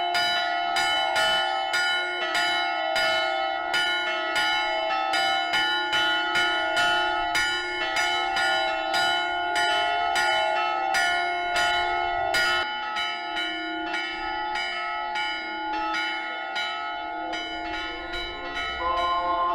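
Greek Orthodox church bells ringing a rapid, even run of strikes, each stroke's ring hanging on under the next. Just before the end, voices begin to sing.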